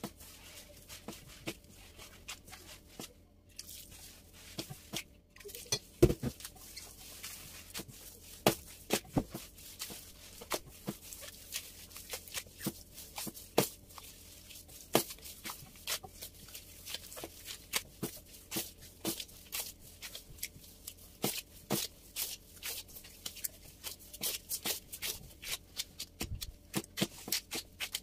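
Hands working semolina bread dough in a bowl: an irregular string of soft clicks, taps and squishes.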